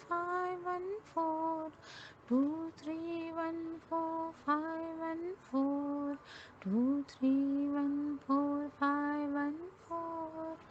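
A woman's voice chanting the digits two-three-one-four-five-one-four over and over in a steady sing-song, each number held on a near-level pitch with short breaks between them.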